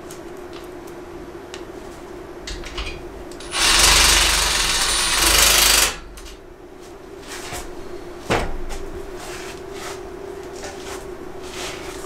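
Milwaukee FUEL cordless impact driver hammering a fastener into the metal rack frame in one burst of about two seconds, a few seconds in. Light handling clicks come before it, and a single sharp knock follows a couple of seconds later.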